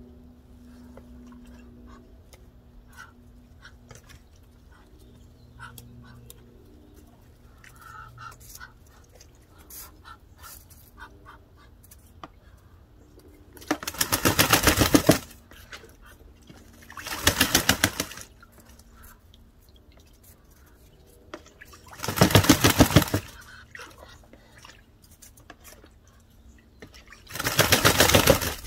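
Muscovy duck splash-bathing in a plastic tub of water, beating its wings in the water: four loud bursts of rapid flapping and splashing, each about a second long, with quiet stretches of faint drips and ticks between.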